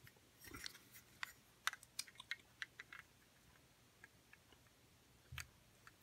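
Two closed Zippo lighters handled and turned over together in the hands: faint scattered clicks and light taps of the metal cases, mostly in the first half, with one more near the end.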